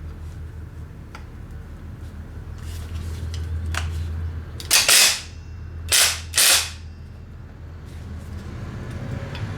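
Cordless impact driver hammering in three short trigger bursts about halfway through, the loudest sounds here, trying to rattle loose a hex bit seized in its anvil. The bit is held in vice grips and stays stuck.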